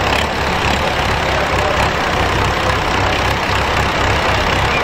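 Diesel engines of a Standard and a Sonalika tractor idling steadily with a low, even pulse while the two tractors wait chained together for the tug-of-war pull to start.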